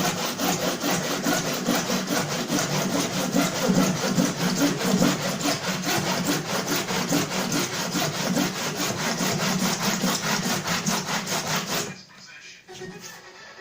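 Saw cutting with quick, even strokes, stopping suddenly about twelve seconds in.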